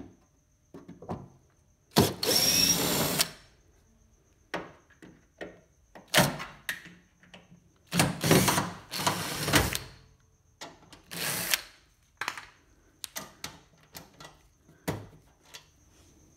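Cordless drill-driver running in several short bursts, backing out the screws that hold a front-loading washing machine's front cabinet cover. Small clicks and knocks of handling come between the bursts.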